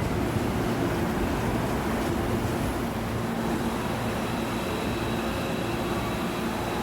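Hankyu electric commuter train running, a steady rumble of wheels and motors heard from inside the car, with a faint steady whine.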